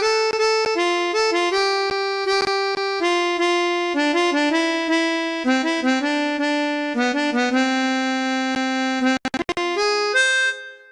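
Chromatic harmonica playing a melodic exercise in short separate notes, often two notes sounding together, moving lower overall. There is a brief break with a few clicks near the end, then a last pair of notes that stops.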